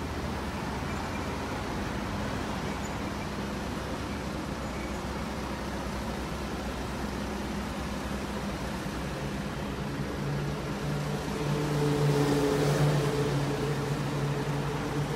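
Steady road traffic noise. In the last few seconds a passing vehicle's engine hum grows louder and then eases off.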